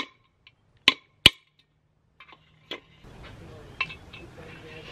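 Hammer blows on the rivets of a rusty metal helmet: three sharp ringing strikes in the first second and a half, then a couple of lighter knocks and handling as a loosened rivet is worked out of the shell.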